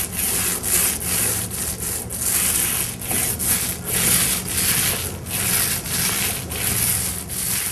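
Paint roller rolling wet metallic paint up and down a wall, a rhythmic rubbing swish of about two strokes a second.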